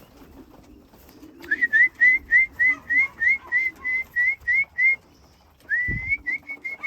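Person whistling to call pigeons back into the loft: a run of short, rising whistled notes, about three a second, then after a brief pause one longer rising note followed by more quick notes. A low thump comes just before the second run.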